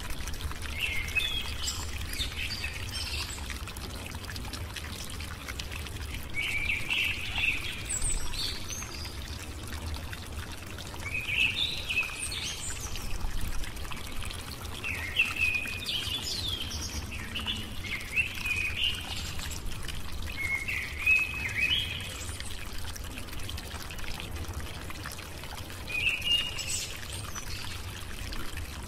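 Birds chirping in short scattered bursts of high chirps, over a steady low hum.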